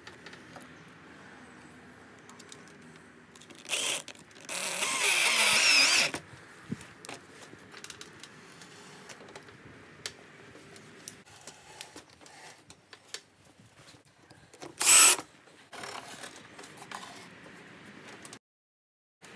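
A cordless drill runs in short bursts, the longest about a second and a half with its motor pitch wavering and another about a second long later on. Between the bursts come quiet clicks and scrapes of steel on the homemade round-bar bending jig.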